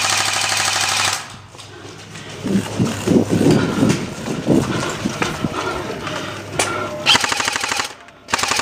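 Airsoft rifle firing on full auto in rapid, even bursts: one burst of about a second at the start, another near the end, and a third beginning just after it. Indistinct, irregular lower sounds fill the gap between the bursts.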